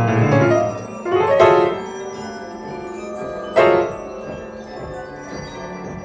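Grand piano played: loud struck chords at the start, again about a second in and once more past halfway, each left ringing and fading away between strikes.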